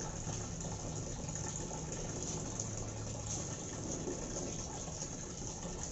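Water running steadily, like a tap pouring into a tub, with a few faint splashes.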